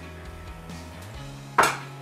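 Background music with a steady low bass line, and about one and a half seconds in a single sharp knock of a plate set down on the kitchen counter.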